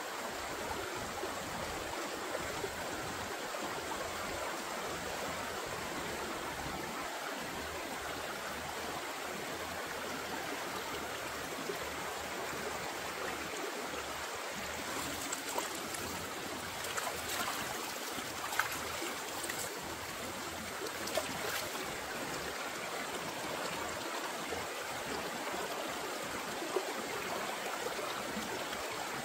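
Steady rush of flowing stream water, with a few light clicks about halfway through.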